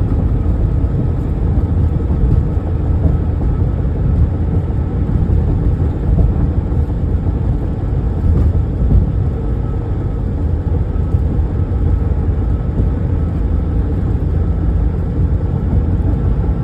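Diesel locomotive idling while stopped on a siding: a steady low hum with a faint higher tone, and no change in speed or load.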